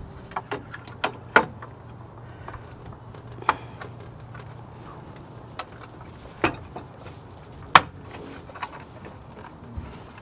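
Scattered sharp clicks and knocks of plastic as an LED fog light housing is worked up into its opening in a pickup's front bumper, over a faint steady low hum.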